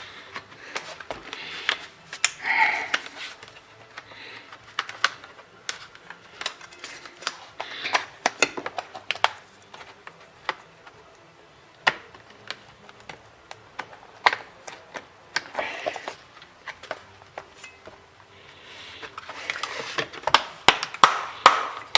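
Irregular sharp clicks and snaps of a pry tool working around the edge of a Lenovo Yoga tablet's plastic back cover as its retaining clips pop loose.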